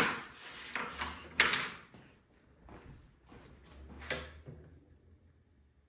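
Clacks and scrapes of plastic parts being handled on a generator around the air filter housing, a few sharp knocks with the loudest about a second and a half in and another near four seconds.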